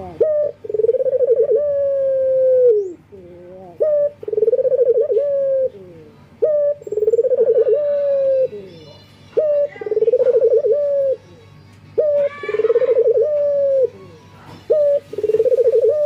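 Male Barbary dove (puter) in breeding condition cooing to call a female. About six calls come at an even pace, each a short note followed by a long, rolling coo that drops in pitch at the end.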